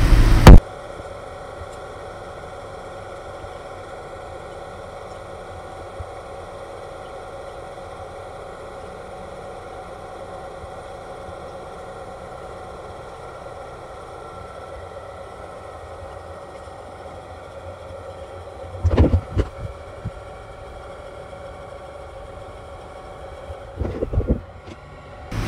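2004 Honda Civic Si's four-cylinder engine idling steadily while the cooling system draws in fresh coolant. A few short knocks and bumps come in the last several seconds.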